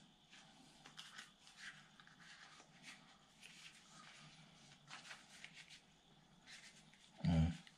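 Faint rustling and crinkling of a banana leaf being folded and rolled by hand around a cassava suman filling, with one short low thump near the end.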